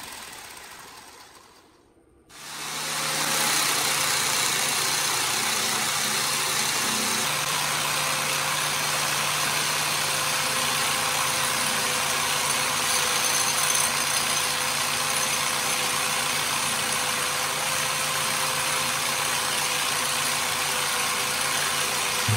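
Angle grinder driving a sanding-belt attachment: the sound dies away over the first two seconds, then the grinder starts up about two seconds in and runs steadily with a steady hum under a loud hiss while the end of a steel rod is ground against the belt, throwing sparks.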